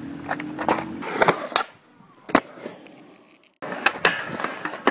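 Skateboard wheels rolling on rough concrete, with several sharp clacks of the board striking the ground. The sound drops low for a moment and then cuts back in abruptly with more rolling and clacks as a skater rides a low metal flat bar.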